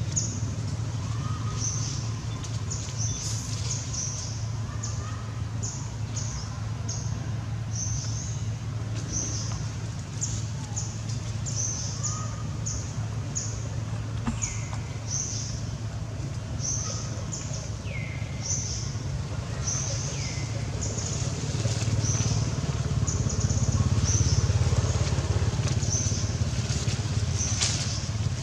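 Outdoor ambience: a steady low rumble with a short, high-pitched chirp repeating about once a second, and three short falling squeaks in the second half.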